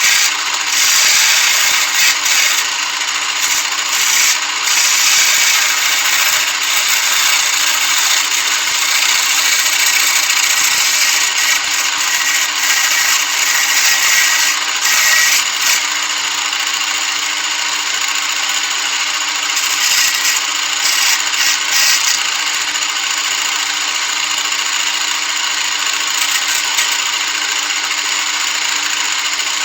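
Copy lathe running steadily as its cutter turns a pine bed leg: a constant motor hum under a dense hiss of wood being shaved, rougher and more uneven in the first half, then smoother.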